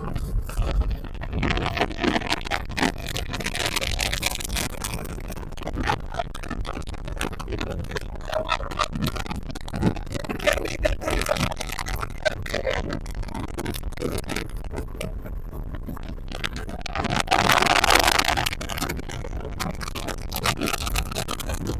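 Blue Wave 220 Classic boat underway at speed: wind buffeting the microphone and the hull slapping through chop make a steady rough rush full of irregular knocks. There is a louder rushing surge lasting about a second and a half near the end.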